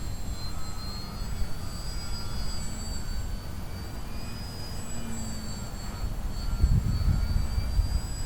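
Small brushless electric motor and propeller of a 3D foam RC airplane in flight, a thin high whine that shifts slightly in pitch as the throttle changes. Underneath is a low wind rumble on the microphone, heavier about two-thirds of the way through.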